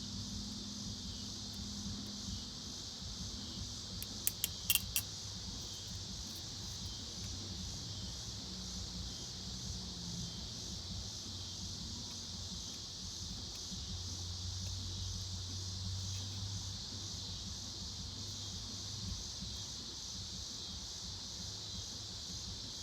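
Steady high chirring of insects, a cricket-like chorus, with a quick cluster of sharp clicks about four seconds in.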